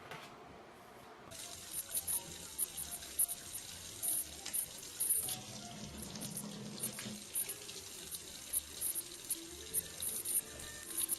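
Water running steadily with a light splashing hiss, starting about a second in, like a tap running into a sink.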